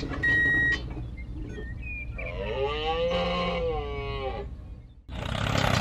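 A short steady electronic beep, then a long pitched sound effect that rises and falls over about three seconds. Just before the end, a loud noisy sound cuts in suddenly.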